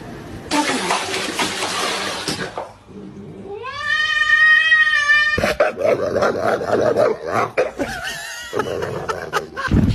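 A cat caterwauling: one long drawn-out yowl, rising in pitch and then held, a little over three seconds in. A burst of noise comes before it and a jumble of knocks and other sounds after.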